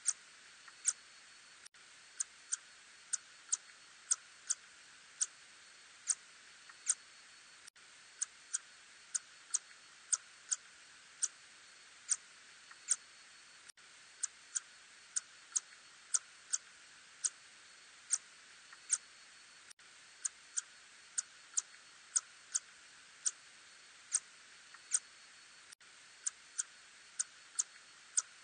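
Lesser tube-nosed bat (Murina ussuriensis) echolocation calls made audible as short, sharp clicks, unevenly spaced at about one to two a second over a steady hiss.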